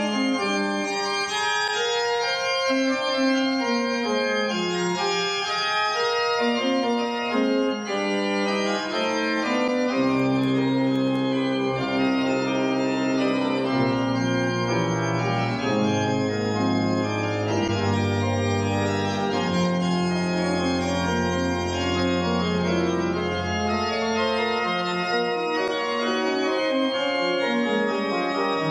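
Organ playing slow, sustained chords. Deep pedal bass notes join about ten seconds in and drop away a few seconds before the end.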